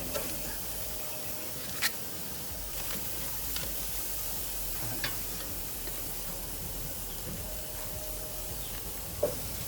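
Steady sizzling hiss of food cooking on a barbecue grill, with a few sharp clicks, the loudest near the end.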